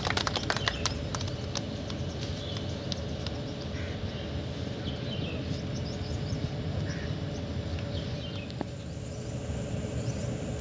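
The last scattered hand claps of applause die away in the first second, then a steady low outdoor hum with birds chirping now and then.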